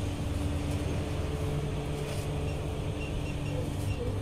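Steady machine hum from a bakery's conveyor bread oven running, with a couple of held tones over a low rumble.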